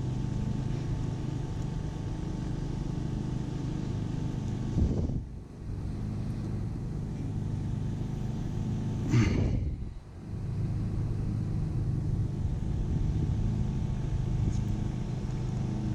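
Steady low mechanical hum like an idling engine, briefly interrupted twice, about five and nine and a half seconds in.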